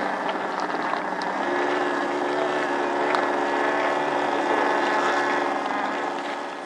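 Propeller engines of radio-controlled aerobatic model planes flying overhead, a steady droning engine note that shifts pitch about a second and a half in and fades a little near the end.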